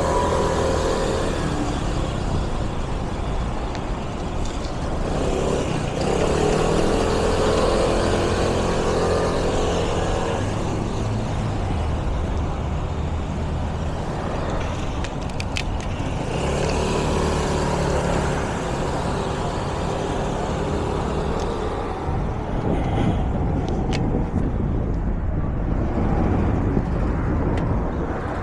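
Street traffic: motor vehicle engines pass close by several times over a steady low rumble of road noise.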